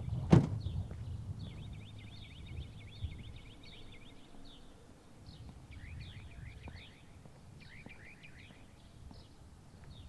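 A car door on a Mazdaspeed3 hatchback slams shut with one loud thud just after the start. Small birds then sing in several runs of quick repeated chirps over a low steady background rumble.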